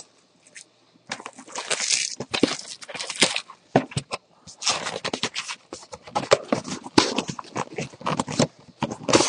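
A sealed box of hockey cards being torn open by hand: a run of irregular ripping, crinkling and scraping noises of wrap and cardboard, starting about a second in.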